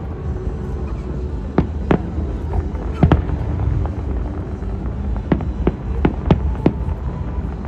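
Aerial fireworks shells bursting in a rapid series of sharp bangs, about ten in all, bunched about two to three seconds in and again from about five seconds. A steady low rumble runs underneath.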